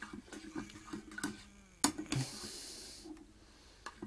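Light taps and scrapes of a slotted spatula against a saucepan as butter melts in it, with a sharp click a little under two seconds in followed by a hiss lasting about a second.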